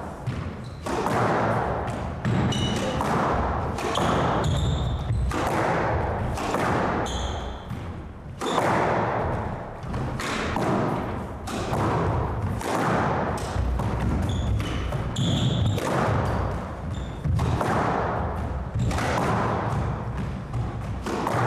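Squash rally: repeated sharp thwacks of racquet strikes and the rubber ball hitting the walls and the wooden floor, about one to two a second.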